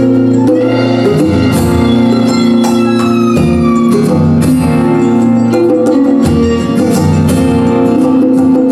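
Folk-rock band playing an instrumental passage between sung verses: acoustic guitars and mandolin strumming over hand percussion, with a high melody line sliding down in pitch a few seconds in.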